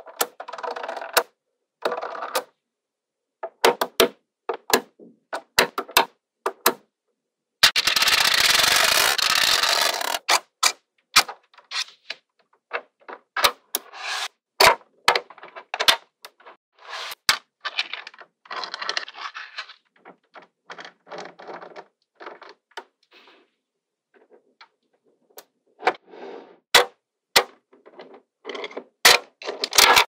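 Small magnetic balls clicking and snapping against each other in sharp, irregular clicks. A plastic card scraping and rattling through rows of the balls as it splits them, with one louder scraping rattle lasting about two seconds about a third of the way in.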